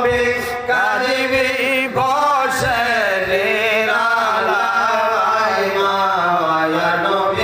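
A man singing a Bengali devotional song (gojol) about the Prophet and Madina into a microphone. He draws the melody out in long, wavering, sliding notes without clear words.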